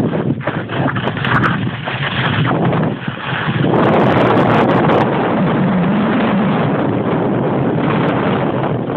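Wind rushing over a handheld phone's microphone during a fast downhill ski run, mixed with skis scraping across the snow. It is gusty and uneven for the first few seconds, then steadier.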